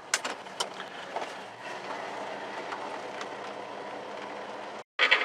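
1969 Dodge Super Bee's V8 running as the car is driven off, with a few sharp clicks in the first second, then a steady drone that cuts off abruptly near the end.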